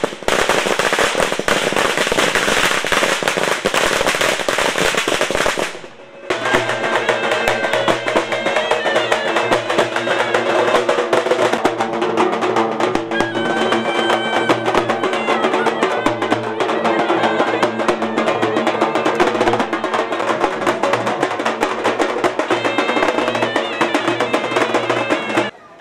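A string of firecrackers crackling in a rapid, dense volley for about six seconds, stopping abruptly. Then a street band of large double-headed drums beaten with sticks, with a small brass horn playing a tune over them.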